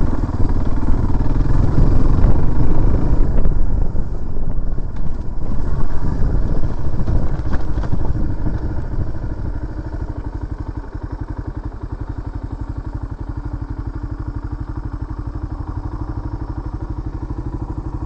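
Off-road motorcycle engine running along a rough dirt trail under changing throttle. About nine seconds in it eases off and settles into a steady, evenly pulsing idle as the bike stops.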